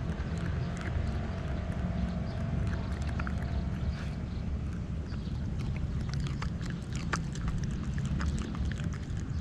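A dog eating rice from a coconut-shell bowl close to the microphone: a run of quick wet chewing and smacking clicks, busiest in the second half, over a steady low rumble.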